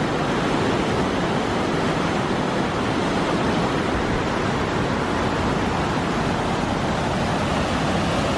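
Fast mountain river rushing over rocky cascades: a steady, loud wash of white water.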